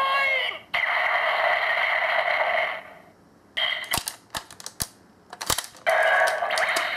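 Kyoryuger toy playing the electronic sound effects for the Zyudenchi No. 23 Futabain through its small speaker, a steady buzzing effect that stops about three seconds in. Then a run of sharp plastic clicks as the battery is worked in the toy, and a new electronic sound starts near the end.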